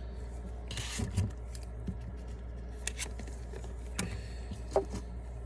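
Trading cards being handled: a short sliding swish with light taps about a second in, then a few faint clicks, over a steady low hum.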